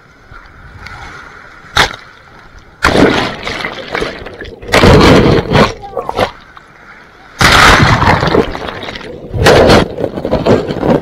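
Sea water splashing and surf breaking close to the microphone in several loud bursts, with a sharp knock about two seconds in.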